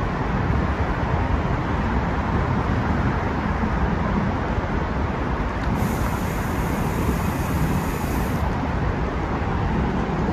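Steady rumbling travel noise heard from inside a moving vehicle, with a faint high hiss coming in for a couple of seconds past the middle.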